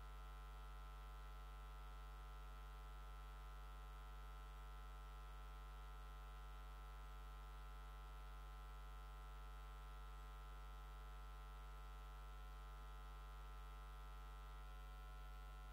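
Near silence but for a faint, steady electrical mains hum: a low buzz with a long ladder of overtones that does not change.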